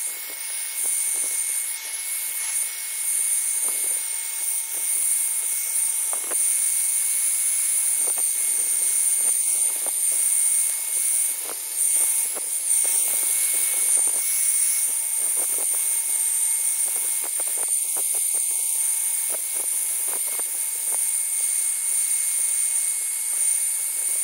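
Handheld hot-air blower running steadily: a constant rush of air with a high, steady motor whine, warming the glued edge of a laptop base to soften the adhesive. Light scattered clicks and taps sound over it.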